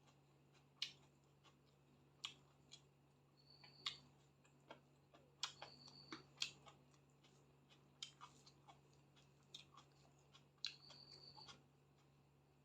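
Faint eating sounds: a person chewing chicken and rice with scattered wet clicks and smacks at irregular intervals, and three short high thin tones in between.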